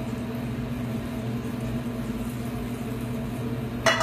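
Steady low mechanical hum of commercial kitchen equipment, with a short sharp sound near the end.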